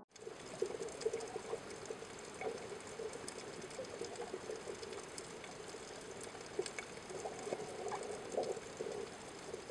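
Faint bubbling, crackling noise: many small irregular pops over a steady hiss.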